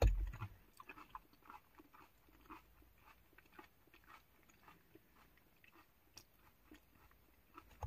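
A person chewing food close to the microphone, a run of short soft crunches two or three a second, after a low bump at the start.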